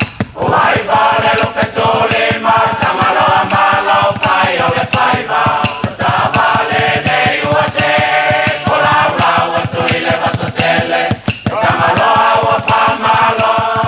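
Samoan choir singing a traditional song in close harmony, full-voiced, with brief breaths between phrases.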